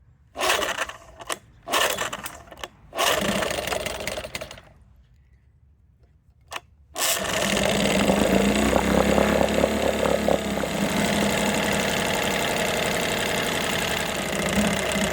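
Older OMC 6 hp two-stroke outboard motor being pull-started: several quick recoil-starter pulls, a pause, then the engine catches about seven seconds in and runs at a steady idle, its cooling leg in a test bucket of water.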